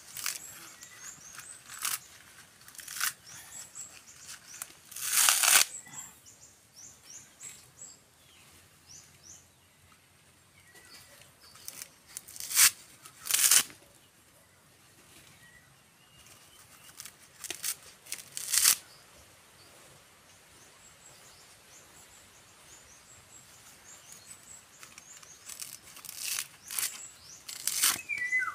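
Coconut husk being torn apart by hand: a series of short, sharp tearing rips at irregular intervals, the longest about five seconds in. Small birds chirp faintly in the background.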